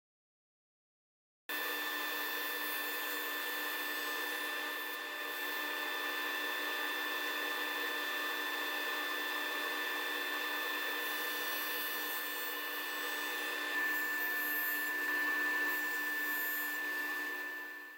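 Powermatic table saw running with a steady whine that starts abruptly about a second and a half in. It grows a little louder about fourteen seconds in as the blade cuts through the end of a wooden table leg.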